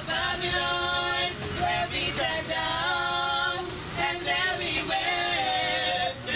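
Women's voices singing a cappella into a handheld microphone, a melody of held notes.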